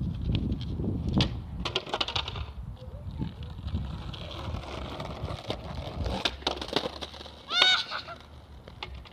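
Skateboard wheels rolling on the street with sharp clacks of the board, and a short, loud honk-like call about three-quarters of the way through.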